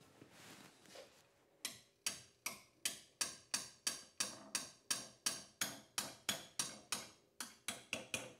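Hand hammer striking a red-hot leaf-spring steel blank clamped in a bench vise, bending the draw knife's handle over. About twenty even blows at roughly three a second start about two seconds in, each with a short metallic ring.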